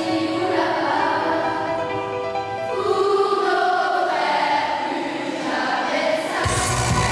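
Children's and teenagers' choir singing long held notes in harmony, the chord shifting every second or so. A low, steady accompaniment comes in suddenly near the end.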